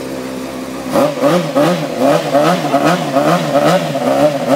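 Honda CBR 600 RR PC37 inline-four sportbike engine through an aftermarket sport exhaust, idling, then blipped rapidly about a second in, about three quick revs a second until the end.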